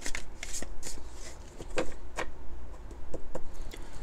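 A deck of oracle cards being shuffled by hand: scattered soft clicks and slaps of cards against each other, with two louder slaps about two seconds in.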